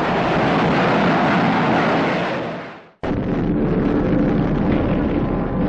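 Loud aircraft engine noise from a flying wing bomber flying low past, fading away over about three seconds. It then cuts abruptly to a different steady rumble with a low hum underneath.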